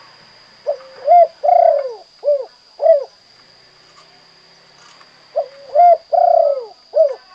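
Spotted dove (tekukur, derkuku) cooing in the 'kuk 2' song type: two phrases of about five low, arching coos each, a couple of seconds apart. A faint steady high-pitched tone runs underneath.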